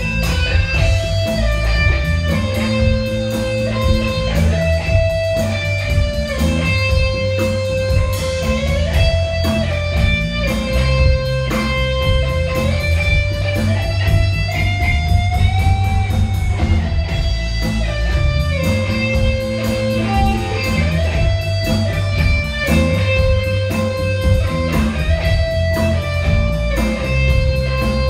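Live rock band playing an instrumental passage: an electric guitar lead of long held notes that bend up and down in pitch, over bass guitar and drums.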